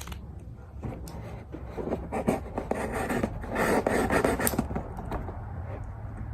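Box cutter scraping and rubbing at the mystery package's tape and wrapping in irregular rasping strokes, busiest around the middle.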